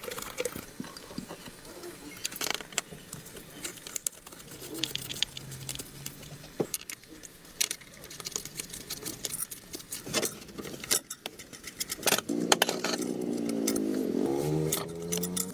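Scattered light metallic clinks and taps, as of small tools or metal parts being handled. About twelve seconds in, a pitched, wavering sound joins them for a couple of seconds.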